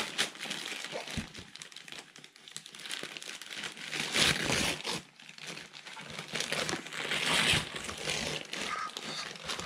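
Gift wrapping paper crinkling and tearing in irregular spurts as a child's hands pull it off a boxed present, loudest about four seconds in and again near the end.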